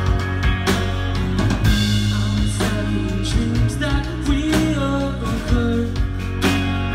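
Live band playing a song: drum kit, electric guitar, acoustic guitar and bass guitar, with a singer's voice over them.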